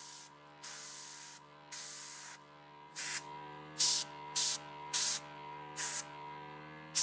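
Point Zero mini-compressor airbrush blowing air over wet acrylic paint in repeated hissing bursts as the trigger is pressed. The bursts are longer and softer at first, then short and louder after about three seconds, all over a steady hum from the compressor motor, which runs continuously.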